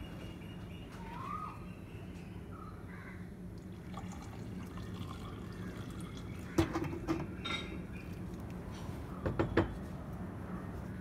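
Metal cookware clattering: the small iron appam pan is set down on the gas stove about six and a half seconds in, and a steel lid clanks onto it near the end, over a steady low hum.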